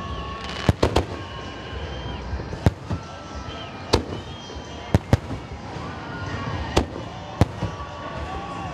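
Aerial firework shells of a festive salute bursting overhead: about nine sharp bangs at uneven intervals, some in quick pairs, over a steady background din.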